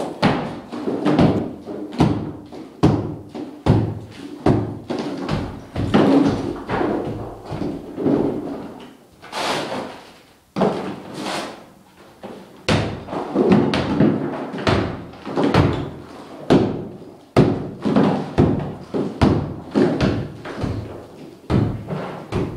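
Club hammer striking a plaster wall, a blow about every second, with plaster crumbling and chunks breaking off. There is a short break in the blows near the middle.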